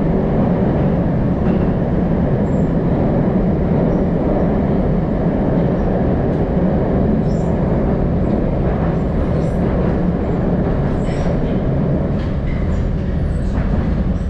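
Moscow Metro 81-775/776/777 (Moskva-2020) train running through a tunnel, heard from inside the car: a steady low rumble of wheels on rails, with faint ticks and rattles now and then.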